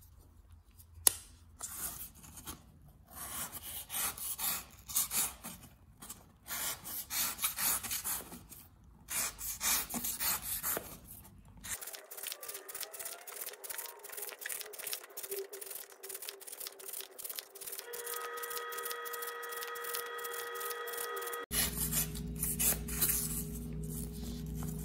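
Repeated strokes of an Irimo folding knife's blade slicing strips off corrugated cardboard, a rasping scrape with each cut, as an edge-sharpness test. Through the middle, the strokes give way to a run of rapid, even clicks.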